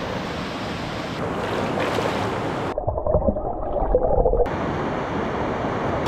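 Rushing water from a river or waterfall, a steady even rush. The sound changes at a few abrupt cuts, and for about a second and a half in the middle it turns muffled, with only the low part left.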